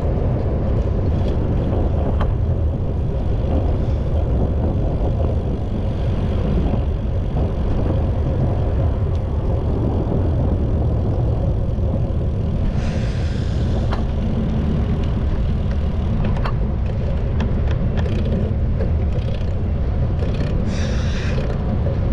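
Wind rumbling on the microphone of a camera riding along on a bicycle, over city traffic. There are two brief hisses, about halfway through and near the end.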